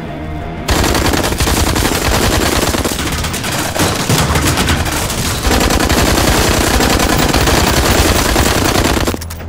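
Sustained automatic gunfire, a dense unbroken volley, with bullets tearing into a metal wall and a wooden desk. It starts abruptly under a second in and cuts off just before the end.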